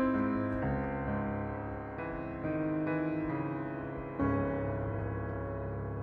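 Slow background piano music: sustained chords struck a few seconds apart, each fading away.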